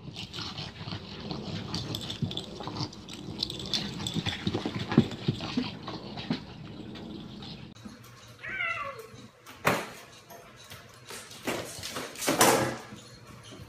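Scuffling and rustling with small knocks, then a short falling cat meow, then a few sharp knocks as a cat with a cup stuck over its head bumps against the wall, the loudest near the end.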